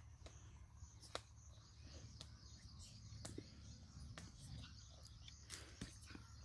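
Near silence: faint outdoor background noise with a few soft clicks.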